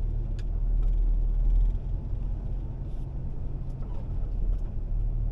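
Car interior noise while driving: a steady low engine and road rumble.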